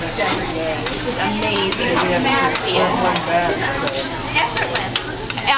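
Fried rice sizzling on a hibachi steel griddle as a metal spatula scrapes and chops through it, with frequent sharp clicks of the spatula striking the steel. Voices of diners murmur underneath.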